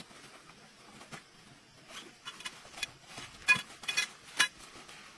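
Camping gear being unpacked by hand: a nylon tent bag and tent fabric rustling, with a few sharp clicks and knocks, the loudest about three and a half to four and a half seconds in.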